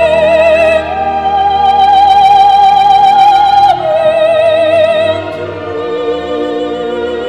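Operatic singing laid over as background music: a voice holding long notes with a wide vibrato, moving to a lower note toward the end.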